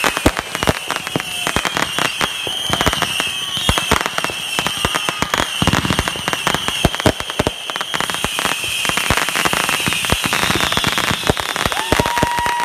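Fireworks finale: a dense, continuous barrage of aerial shell bangs and crackling, with a steady whistle tone coming in near the end.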